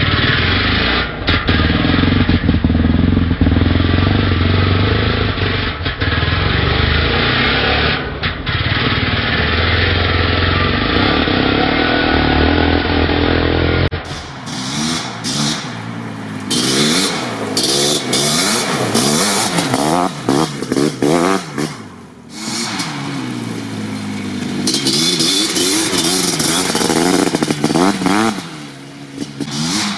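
Suzuki LT500R quad's 500 cc two-stroke single engine, with an FMF Fatty expansion pipe, run hard at high revs under load. About halfway through the sound changes abruptly to a slightly quieter run in which the engine revs rise and fall again and again as the throttle is worked through the gears.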